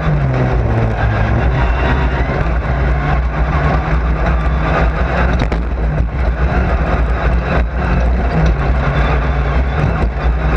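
Race car engine running hard at fairly steady revs, heard from inside the car, with small dips and rises in pitch and a constant rush of road and tyre noise.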